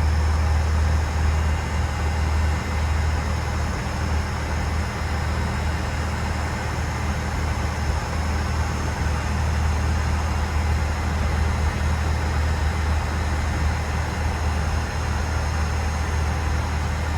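Steady low hum and rushing air inside a Boeing 737-800's galley, from the aircraft's cabin ventilation and the galley oven's fan, with no change in level.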